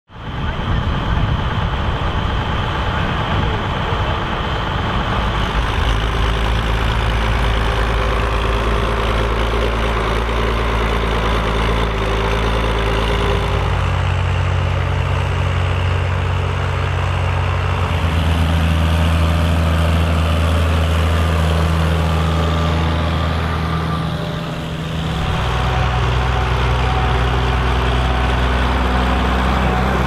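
Ford 8000 tractor's six-cylinder diesel engine running steadily under load while pulling a five-furrow plough through the soil. The engine note shifts abruptly several times, with a short drop in loudness near the end.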